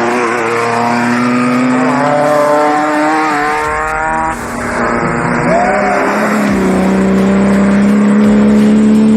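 Off-road race vehicle engine running hard. Its pitch climbs for a couple of seconds, breaks off about four seconds in as it shifts or lifts, then holds a loud, steady high note.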